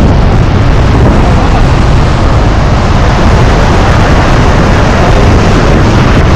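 A large waterfall in monsoon flow, heard close up at its foot: a very loud, steady rush of falling water and spray.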